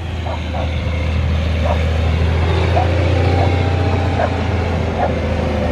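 Diesel dump truck engine idling with a steady, deep, even hum, with a few faint short chirps above it.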